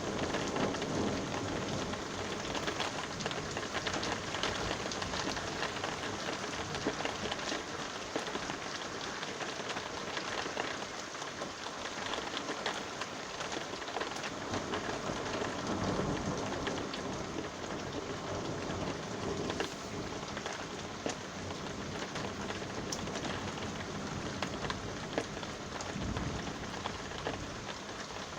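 Steady rain falling and pattering on surfaces, with low rumbles of thunder swelling up a few times: near the start, about halfway through and near the end.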